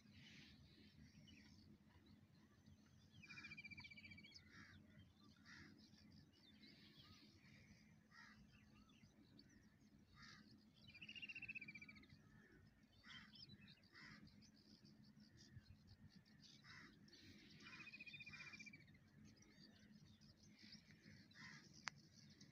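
Faint calls and chirps from several birds over near silence, with a few louder, longer calls about three seconds in, around eleven seconds and again near eighteen seconds.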